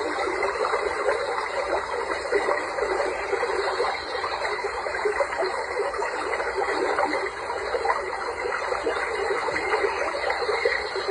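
Running water babbling steadily, a dense run of small gurgles with no pause.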